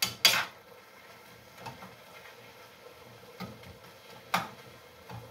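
Metal spatula knocking and scraping against a frying pan as cooked greens are stirred: a few sharp clicks about a second apart, the loudest two right at the start.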